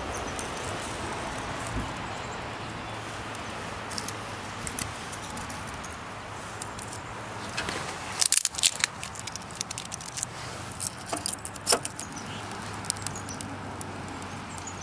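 Spruce kindling crackling and popping as a small fire catches inside a wood stove made from a .50-cal ammo can, over a steady background noise. The pops come in scattered clusters, most of them in the second half.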